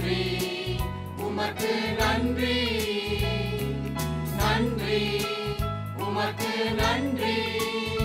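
Mixed choir of men and women singing a Christian hymn with instrumental accompaniment, voices holding long notes with a steady bass line beneath.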